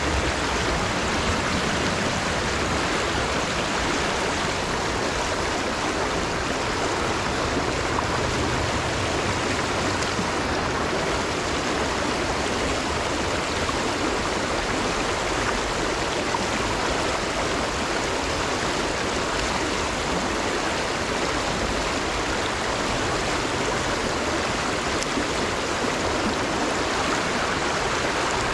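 River water rushing, a steady, even rush of flowing current with no break or change.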